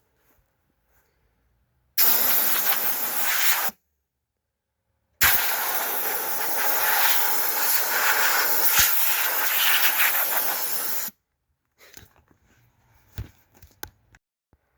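Ryobi 18-volt cordless leaf blower blowing air in two bursts, a short one of under two seconds and then one of about six seconds, each starting and stopping abruptly as the trigger is pulled and let go. A few faint clicks follow.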